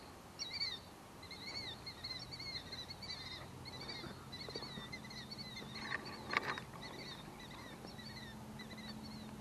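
A songbird singing a long run of quick, repeated rising-and-falling chirps, with a few short clicks about six seconds in, over a faint low hum.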